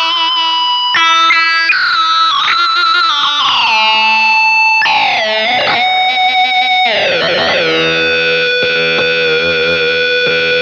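Electric guitar played through an EarthQuaker Devices Data Corrupter PLL synth pedal: a buzzy, synth-like tone with thick overtones, held notes changing every second or so, the pitch sliding smoothly from note to note.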